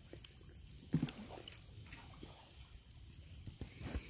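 Wood campfire crackling faintly with scattered small pops, over a steady high-pitched whine. About a second in there is one brief low sound.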